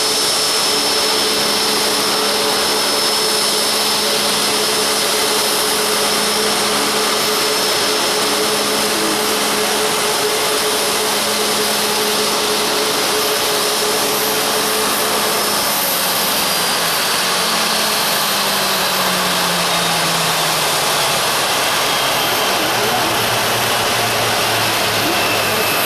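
Boeing 737 MAX 8's CFM LEAP-1B turbofan engines running with a loud rush and a steady high whine. About fifteen seconds in, the engine tones start to fall in pitch.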